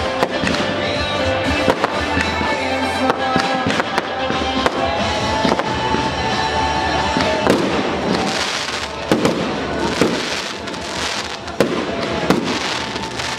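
Fireworks bursting and crackling, with music playing throughout. The bangs and crackling come thicker and louder from about halfway through.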